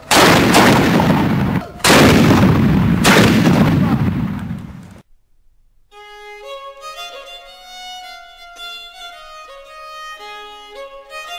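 Muskets fired, a shot right at the start and another about two seconds in, each very loud and leaving a long rumble that dies away over a few seconds. After a brief silence, a melody played on an instrument begins.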